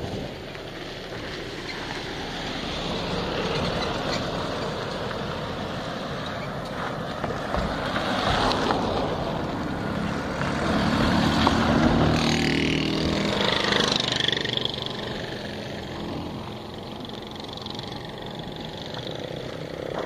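A motor vehicle passing along the road, its engine and tyre noise building to loudest about halfway through and then fading.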